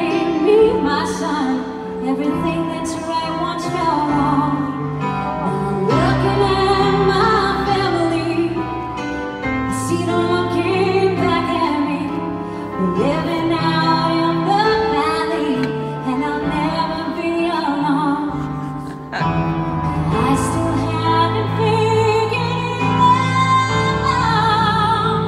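A woman's solo voice singing a slow ballad live with vibrato on held notes, over piano accompaniment, amplified through a concert sound system.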